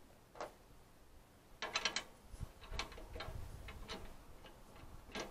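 Small metal clicks and ticks of antenna-mount hardware being fitted by hand: a single click, then a quick cluster and more irregular clicks as the washer and nut are worked onto the mount.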